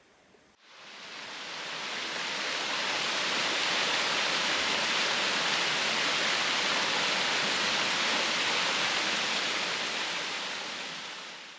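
Steady rush of flowing water, such as a river or waterfall. It fades in about half a second in, holds, and fades away at the end.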